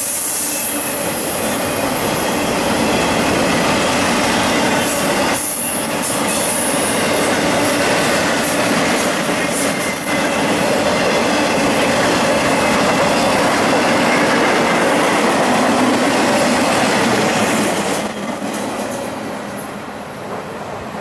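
Intermodal freight cars loaded with containers and trailers rolling past on the rails: a steady rush of wheel noise with a thin squeal in it. It drops away about eighteen seconds in as the last car clears.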